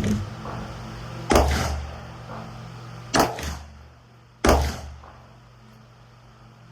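Three rifle shots, sharp reports less than two seconds apart, each followed by a short rumbling echo.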